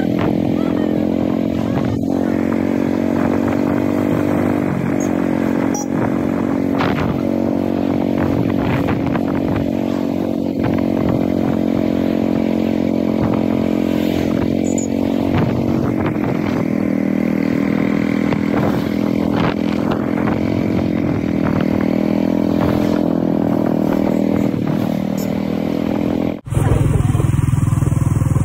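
Royal Enfield Bullet 350's single-cylinder engine running at a steady cruise, with scattered clicks. About 26 seconds in, the sound breaks off and a louder, deeper engine rumble follows.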